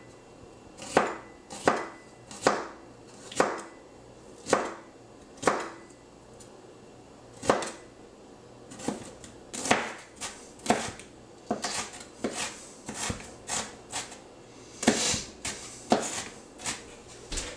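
Chef's knife slicing a red bell pepper into thin strips on a cutting board: separate knife knocks on the board about once a second, turning to quicker, closer-spaced chopping in the second half.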